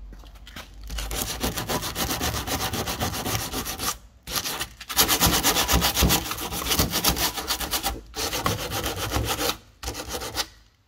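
Sandpaper rubbed by hand on the Alfa Romeo 33's body in quick, even back-and-forth strokes, with short pauses about four and eight seconds in.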